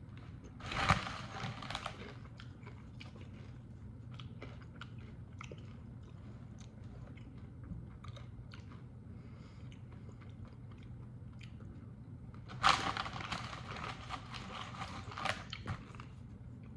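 A person biting into and crunching a mouthful while tasting a freshly made corn dip: a short bout of crunching about a second in, then a longer bout of crunchy chewing near the end.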